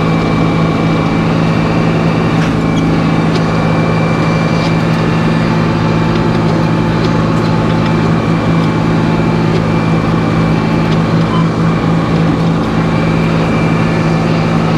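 Sawmill running between cuts, giving a loud, even machine drone with a constant low hum.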